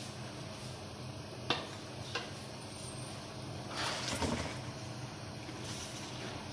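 Raw chicken pieces tipped from a plastic colander into a steel karahi of blended masala, a soft wet slide and thud about four seconds in. Two light clicks come before it, over a steady low hum.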